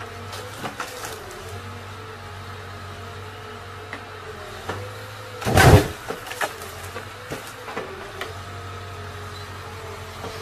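Timber truck's hydraulic crane loader working. A steady engine and hydraulic pump hum carries a whine that dips and rises as the boom moves, with scattered knocks. A little over halfway there is a loud clatter as the grapple takes and lifts a bundle of logs.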